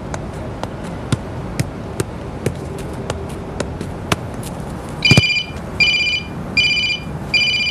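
A run of sharp, irregular taps, then a mobile phone's electronic ring: four identical high beeps, each about half a second long, starting about five seconds in.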